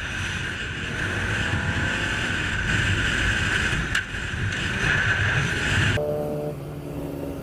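Steady road and wind noise of a moving car with a low rumble, heard from inside the vehicle. About six seconds in the sound cuts off abruptly and gives way to a quieter steady pitched hum.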